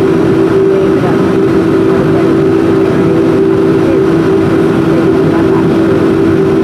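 Boeing 737-400's CFM56-3 jet engines running at low taxi power, heard inside the cabin as a steady drone with two close humming tones over a low rumble.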